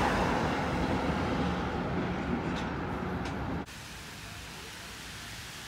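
Steady rumble of vehicle traffic with a low engine hum, cutting off suddenly about three and a half seconds in to a quieter steady hiss.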